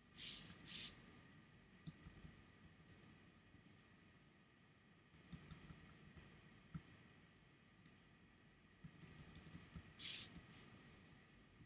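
Faint clicking of a computer mouse and keyboard: two louder clicks just after the start, then scattered single clicks, a quick run of clicks about nine seconds in, and a louder click right after it.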